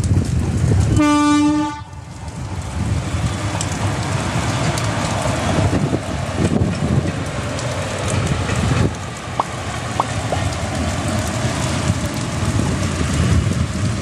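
Indian Railways electric locomotive sounding one short horn blast about a second in, followed by the steady running noise of the train passing on the tracks.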